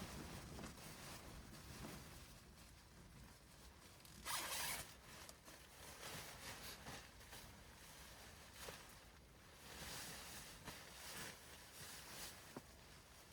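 A zipper being pulled: one loud quick zip about four seconds in, then softer, short rustles and scrapes.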